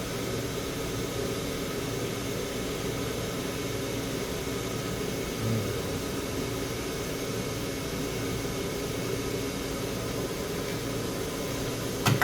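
Steady blowing hiss with a low hum, from fan-driven gear on a micro-soldering bench, with a short thud about halfway and a few sharp clicks near the end.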